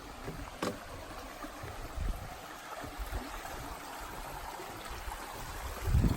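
Steady rush of a stream's running water, with a few short low thumps on the microphone.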